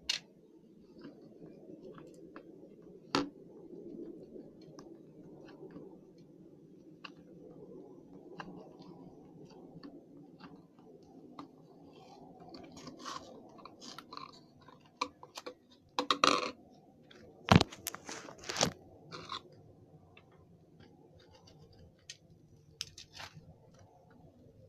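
Slime being squished and kneaded by hand: a soft, steady squelching texture broken by scattered sharp pops and crackles, with the loudest run of pops about two-thirds of the way through.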